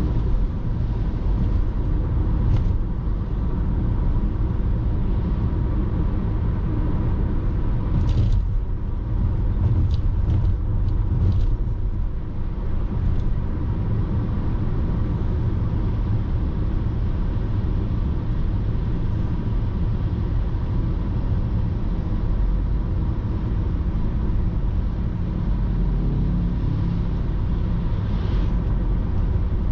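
A car driving on the road, picked up by a dashcam inside the cabin: a steady low rumble of engine and tyre noise, with a few brief clicks about a third of the way in.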